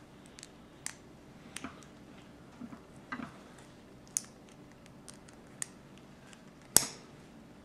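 Small plastic Lego pieces being handled and pressed together: scattered light clicks and taps, with one louder click near the end.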